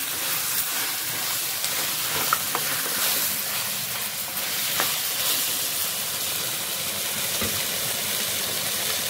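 Raw chicken pieces sizzling in hot oil in a clay pot, a steady hiss, while a spatula stirs and now and then scrapes the pot a few times in the first half.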